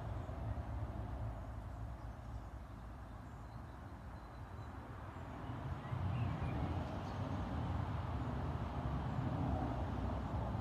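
Outdoor background noise: a low, uneven rumble that dips for a few seconds and swells again about six seconds in, with a few faint chirps around then.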